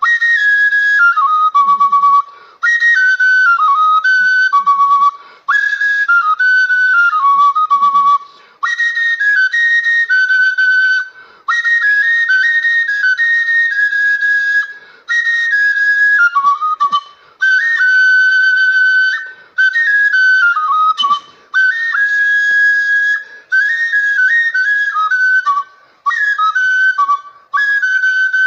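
Igbo ọja flute played solo, a melody in short phrases of two to three seconds, each cut off by a quick breath pause. The tune steps up and down with quick runs of notes.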